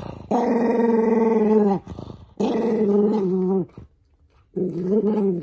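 Toy poodle growling in three long, even-pitched growls with short breaks between them, as socks are pulled onto its paws: an angry warning at having its feet handled.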